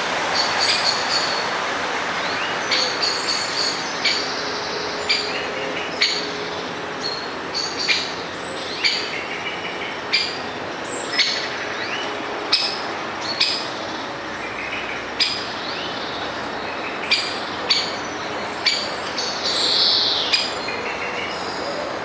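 Great spotted woodpecker giving its sharp, short "kik" alarm call over and over, roughly once a second at an uneven pace, a warning at a predator near the nest. A steady hiss runs underneath.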